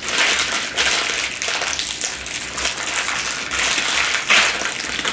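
Clear plastic bag of powdered pancake mix crinkling and rustling as it is squeezed and worked in the hands, in irregular bursts.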